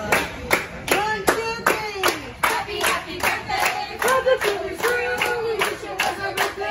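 A group of restaurant staff singing together over steady rhythmic hand clapping, about two or three claps a second.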